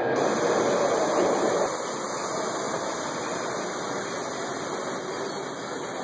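Live-steam model Climax geared locomotive running past, giving a steady hiss that is a little louder for the first second and a half.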